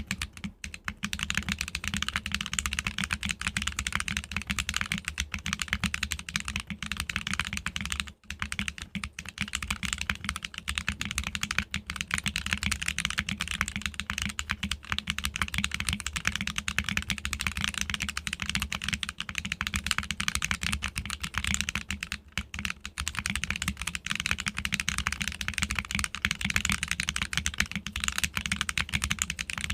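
Continuous fast typing on a custom mechanical keyboard with lubed Viola Tricolor tactile switches, PBT keycaps and a top-mounted aluminium plate: a dense stream of key clacks with a brief pause about eight seconds in.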